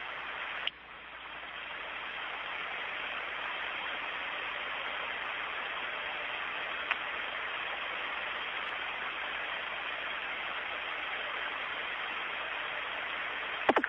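Steady hiss of static on an open air-to-ground radio channel from the Soyuz spacecraft, with no one talking. There is a click under a second in, after which the hiss drops and builds back up.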